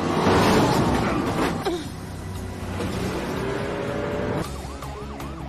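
Car engines revving hard with tyre noise, the pitch sweeping up and down and then climbing steadily in a high-speed chase. About four seconds in it cuts to a police siren yelping rapidly.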